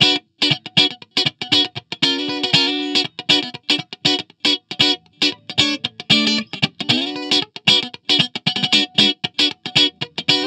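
Fender Stratocaster electric guitar played through an amp's speaker cabinet and close-miked with a Shure SM57: a fast riff of short, choppy picked notes, about four or five a second, each cut off sharply with brief silences between them.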